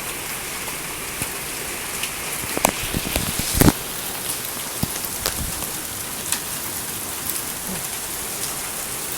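Hailstorm: a steady hiss of heavy rain with hailstones striking hard surfaces as scattered sharp knocks, a loud cluster of hits about three seconds in.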